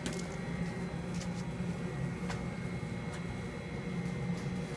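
Steady low mechanical hum with a thin, constant high whine over it and a few faint clicks.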